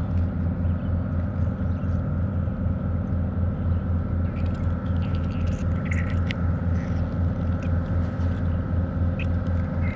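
Steady low rumble throughout, with a few faint clicks and taps about halfway through.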